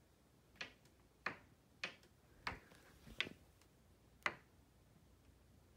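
Painted-over interior door hinge giving six short, sharp squeaks as the door is swung, spaced about half a second to a second apart: the squeaky hinge that wants lubricating.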